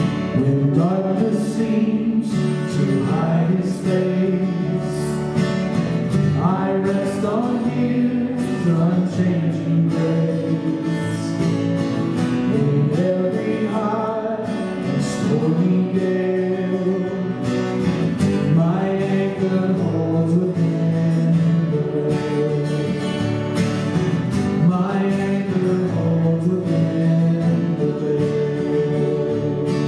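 Live worship band playing a worship song: acoustic guitar, bass guitar and keyboard, with a man and a woman singing.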